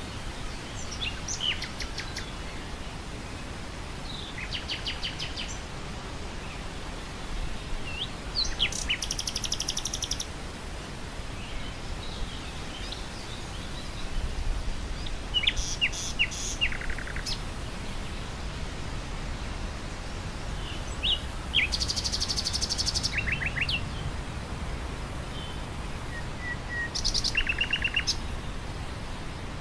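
Nightingale singing in separate phrases of fast repeated notes, trills and short whistles, a few seconds apart, over a steady low rush of wind through grass.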